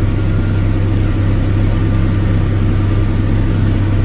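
Vehicle engine running steadily, a constant low drone with no change in speed.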